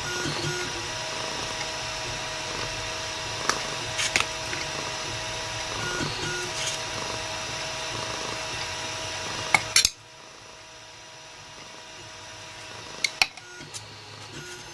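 A steady mechanical whir with a few sharp clicks. The whir cuts off suddenly about ten seconds in, leaving a much quieter hum in which two more clicks fall.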